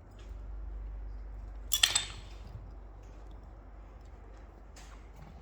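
Metal tensioner parts clinking as they are handled: a quick double clink with a brief ring about two seconds in, and a fainter click near the end, over a low steady hum.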